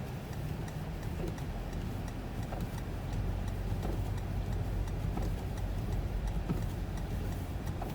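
Inside the cabin of a 2020 Toyota 4Runner TRD Off-Road driving in four-wheel drive through deep snow: its 4.0-litre V6 and the tyres make a steady low rumble, with faint light ticks now and then.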